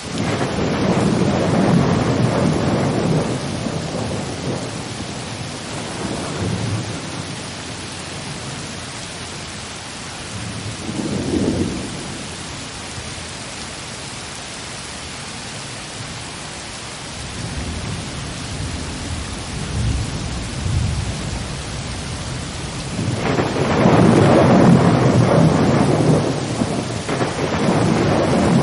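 Thunderstorm ambience: steady rain with low rolling thunder that swells up three times, near the start, a little before the middle, and loudest near the end.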